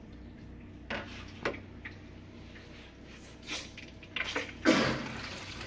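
Hot water from a filled kitchen sink basin draining through a clear PVC P-trap, with a few short gurgles and a louder gurgling rush near the end as the basin empties.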